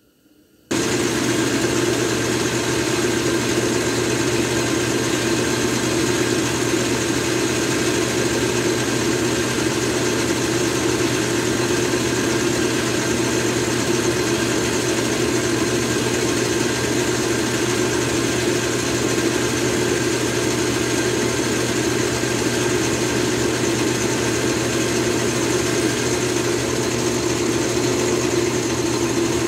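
Metal lathe running steadily with a constant mechanical hum, taking a cutting pass to bore out a pulley's hub. It comes in abruptly just under a second in.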